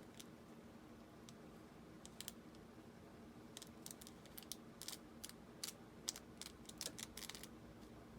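Faint, scattered light clicks and taps of craft materials being handled and lined up by hand on a work table, coming more often in the second half.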